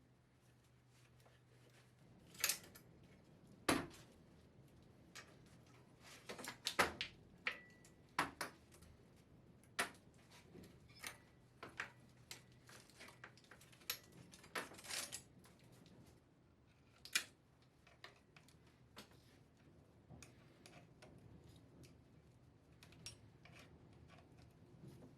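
Hand tools and metal bicycle parts being handled: scattered sharp clinks and knocks at uneven intervals, one followed by a brief ringing note.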